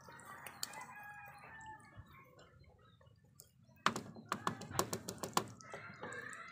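A wooden spatula stirring thick simmering peanut sauce in an aluminium pot, with a run of sharp clicks and knocks about four seconds in. A bird calls in the background near the start and again near the end.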